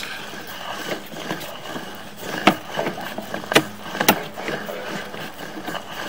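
Sewer inspection camera's push cable being pulled quickly back out of the sewer pipe: a steady rush of noise with three sharp knocks about two and a half, three and a half and four seconds in.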